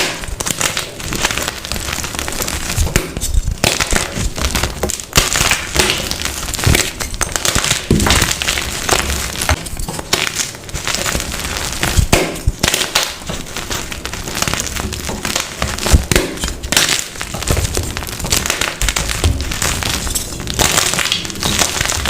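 Blocks of dyed, reformed gym chalk being crushed, a dense run of dry crunching and crumbling with many sharp snaps.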